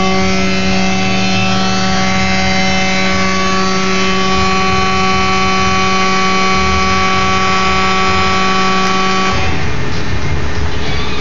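A loud, steady machine hum of one constant pitch, with a rumbling rush beneath it. The hum cuts off suddenly about nine seconds in, and the rushing noise carries on.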